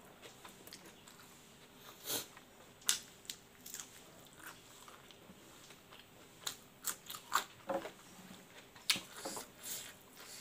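Close-up chewing and crunching of a mouthful of rice and smoked pork eaten by hand, with a run of short crisp crunches as a raw long bean is bitten about two-thirds of the way through.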